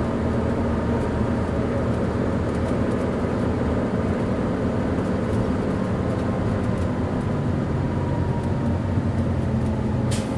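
Cummins ISL inline-six diesel engine of a 2011 Gillig Low Floor transit bus running at a steady, even pitch.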